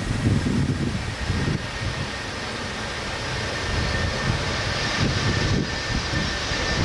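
Airbus A330 jet engines running as the airliner rolls along the runway: a steady noise with a faint high whine over an uneven, gusty low rumble.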